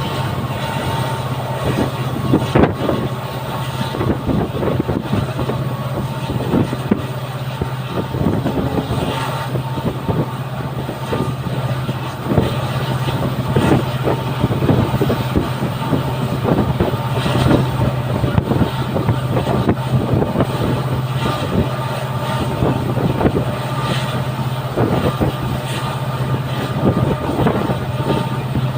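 Passenger train running behind a WDP-4D diesel locomotive: the steady low drone of its EMD two-stroke diesel engine under irregular knocks and rattles of wheels and coaches on the track.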